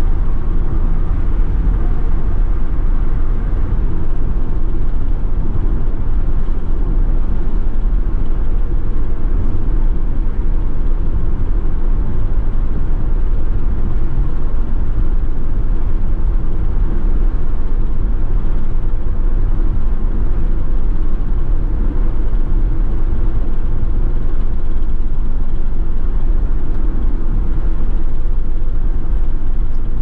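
Steady road noise of a car driving on a highway, heard from inside the cabin: a constant low rumble of tyres and engine with no breaks.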